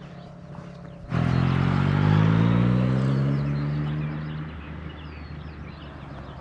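An engine running loud, cutting in suddenly about a second in, its pitch climbing a little and then holding before it fades away; faint bird chirps above it.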